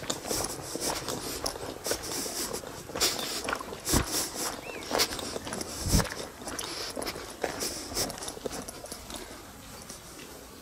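Footsteps of someone walking on a gravel path at an easy pace, with two heavier thumps about four and six seconds in.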